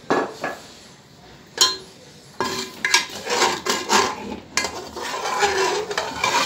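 A spatula stirring potato cubes and mince in water in an aluminium pot, knocking and scraping against the pot. There are a few separate knocks at first, then steady scraping and clinking from about two and a half seconds in.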